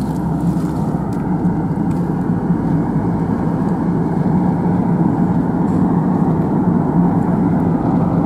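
A car driving along a road: steady road and engine noise, heard from inside the moving car.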